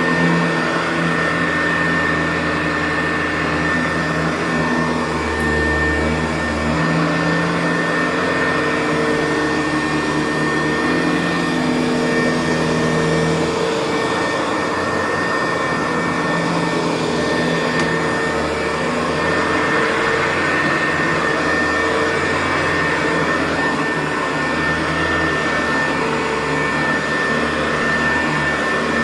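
Hoover U4007 upright vacuum cleaner running continuously on carpet, with a steady high whine and lower humming tones that waver in pitch.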